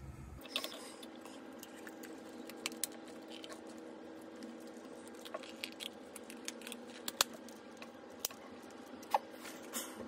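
Faint scattered clicks and light taps of small plastic and metal parts being handled on a workbench, over a steady faint hum. The sharpest clicks come about seven and nine seconds in.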